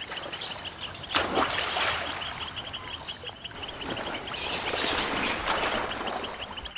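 Water splashing as a rhesus macaque swims, with sharper splashes about half a second and a second in and again around four to five seconds in. Insects chirp in a rapid, even pulse in the background.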